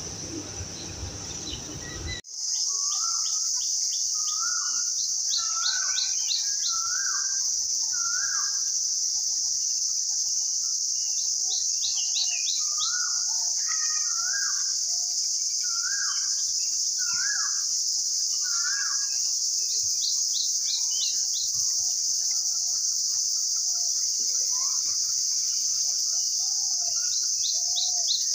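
Birds calling in repeated phrases of short falling notes and quick ticking runs, over a steady, loud, high-pitched insect drone that starts abruptly about two seconds in.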